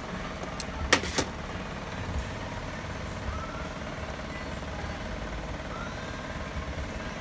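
Handling noise as a hose is twisted and worked off a carpet extractor's brass solenoid valve: two sharp clicks about a second in, then faint scraping, over a steady background hum.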